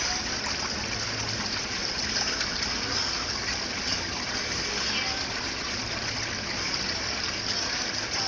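Steady rush of moving pool water, an even hiss with no breaks.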